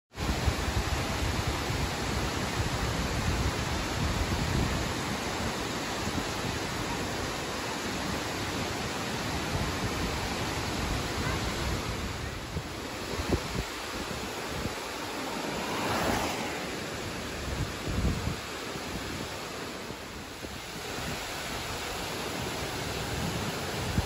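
Large, steep waterfall (Furebergfossen) pouring down bare rock: a steady, loud rush of falling water. Irregular low buffets of wind on the microphone come and go throughout.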